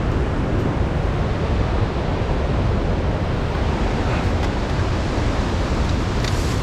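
Steady rushing of a waterfall, an even wash of water noise with no breaks.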